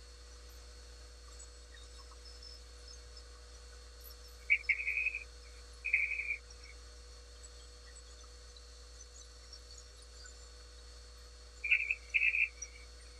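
A steel sliding caliper's jaw sliding along its beam while the pen blank is measured: short scraping bursts in two pairs, one pair about four to six seconds in and the other near the end, over a faint steady electrical hum.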